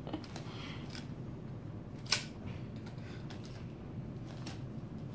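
A few short clicks, one sharp click about two seconds in, over a steady low hum of the room.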